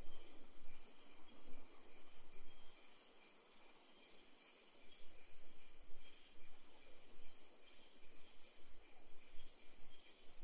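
Crickets chirping in a steady high trill, with pulsing chirps over it and a few faint clicks.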